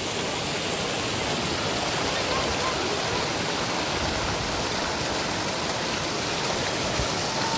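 Waterfall, water pouring and splashing in a steady, even rush. Right at the end a faint held tone comes in over it.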